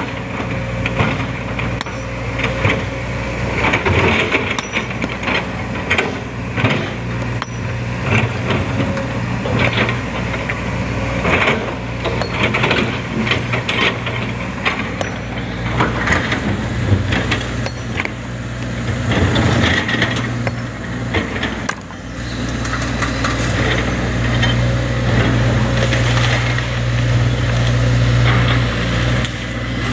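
Sumitomo SH210 hydraulic excavator's diesel engine running steadily under load, with irregular knocks and clatter of stone throughout.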